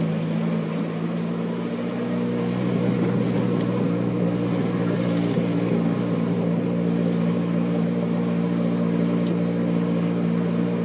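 Car engine running at a steady, unchanging pitch, heard from inside the cabin while driving, with road noise.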